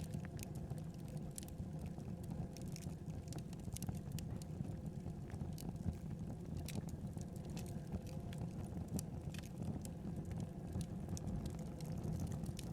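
Wood fire burning in a fireplace: a steady low rumble of the flames with irregular sharp crackles and pops, a few every second.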